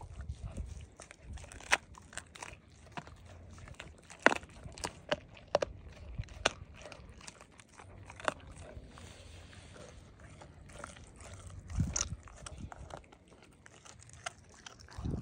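Black German Shepherd chewing and gnawing a chunk of raw deer meat, with irregular sharp wet crunches and tooth clicks.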